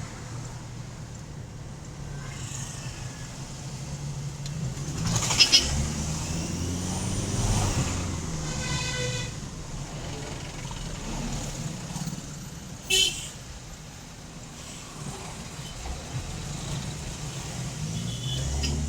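Toyota Hilux engine running under acceleration, its turbocharger whistling and rising in pitch as it spools, made louder by an aftermarket air filter. Two short loud bursts, about five and thirteen seconds in, stand out above the engine.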